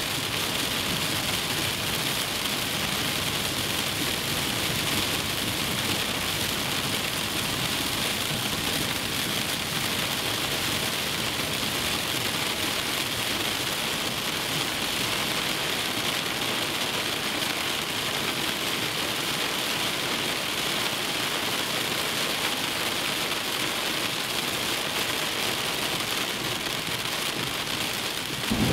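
Heavy rain pelting a moving vehicle, a steady dense hiss heard from inside the car.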